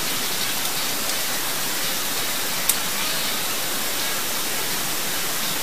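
Steady hiss of background noise, with one sharp click about two and a half seconds in as a blank cartridge is pressed into the Blow Compact pistol's spring-loaded magazine.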